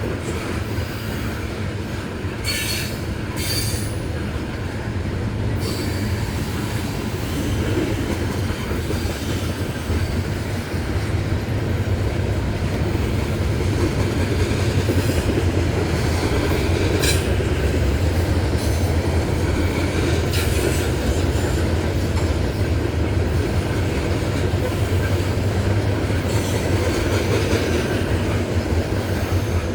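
Loaded coal train of gondolas and hoppers rolling past, with a steady rumble of steel wheels on rail that grows a little louder partway through. Brief high squeals from the wheels come now and then.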